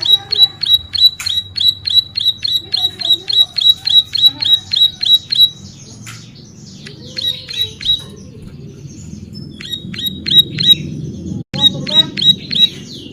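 Ciblek sawah (plain prinia) singing: a fast series of sharp, high downward-sweeping notes, about four a second, in a long run of some five seconds, then shorter bursts broken by pauses. A steady low hum runs underneath.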